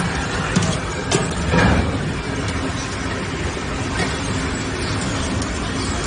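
Steady industrial machinery noise, a continuous din with a few short knocks or clanks in the first two seconds.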